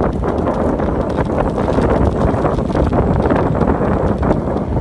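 Wind buffeting the microphone of a camera on a moving bicycle, with tyres rolling on asphalt and many small clicks and rattles from the ride.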